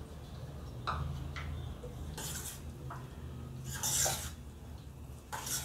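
Metal spoon scraping against a stainless steel bowl while a thick gravy is stirred, three short scrapes in the second half.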